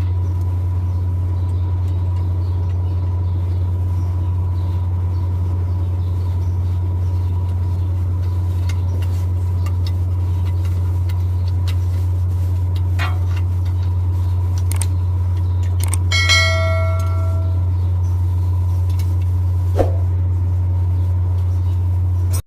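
Mercedes-Benz Actros truck's diesel engine running at a steady idle. About three quarters of the way through, one metal part rings once when struck, like a bell.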